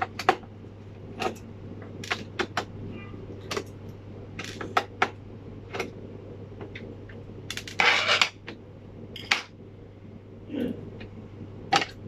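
Small metal clicks and taps at irregular intervals as the screws of a laptop motherboard's heat sink are undone and the heat sink and screws are handled. There is a short scraping rustle about eight seconds in, over a steady low hum.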